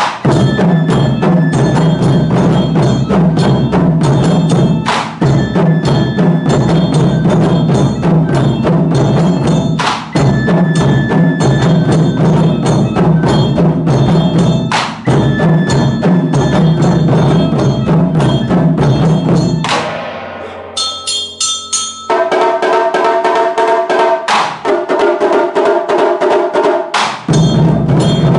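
Ensemble of Japanese taiko drums struck fast with bachi, with a heavy accented stroke about every five seconds. About twenty seconds in, the deep drumming drops away for several seconds, leaving lighter strokes and ringing tones, then full drumming comes back near the end.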